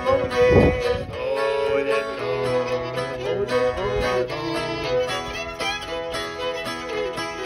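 Fiddle and acoustic guitar playing an old-time fiddle tune together: the bowed fiddle carries the melody over the strummed guitar.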